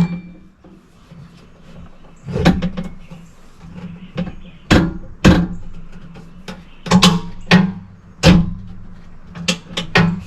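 Sharp metallic knocks with a short ring from an aluminum UTV door and its latch: about ten irregular hits, some in quick pairs, as the door fit and latch are adjusted and tested.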